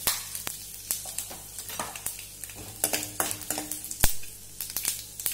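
Cumin, mustard seeds and dried red chillies crackling and popping in hot oil in a kadai, the tempering stage of a sambar. A metal spoon stirs them, with one sharp knock against the pan, the loudest sound, about four seconds in.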